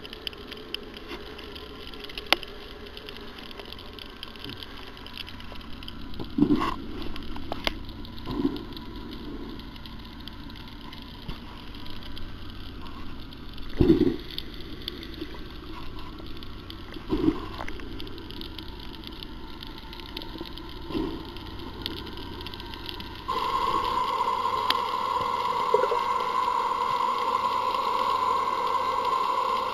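Underwater ambience picked up by a camera in a waterproof housing: a steady hiss with five dull, short thumps several seconds apart. About two-thirds of the way through, a steady droning hum starts suddenly and holds.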